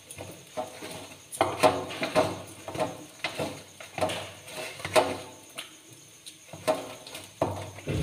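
Steel pot knocking and clinking as hands work food inside it: irregular sharp clinks, roughly two a second, some with a short metallic ring.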